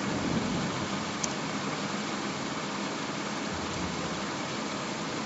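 Steady, even hiss of background noise, with one faint click about a second in.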